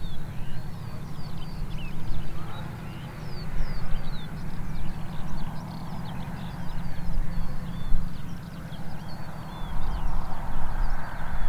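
Spitfire's V12 piston engine running at low taxiing power, a low rapid throb. Small birds chirp throughout, high above it.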